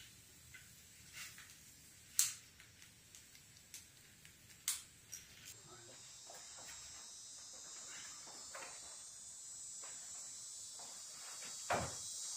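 A few sharp clicks and knocks, then from about five seconds in a steady high-pitched chorus of crickets, with a louder thump near the end.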